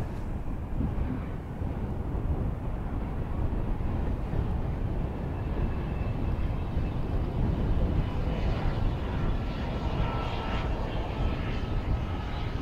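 Bombardier Global 7500 business jet's two GE Passport turbofans running at low taxi thrust: a steady rumble with a faint turbine whine that comes up about halfway through as the jet rolls nearer.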